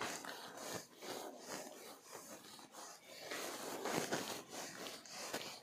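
A handheld duster wiping across a whiteboard: a run of rubbing, scrubbing strokes, a few a second, louder in the second half.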